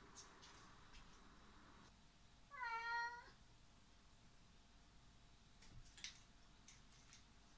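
A domestic cat gives one short meow about two and a half seconds in, lasting under a second and rising slightly at its start. A few faint light taps come before and after it.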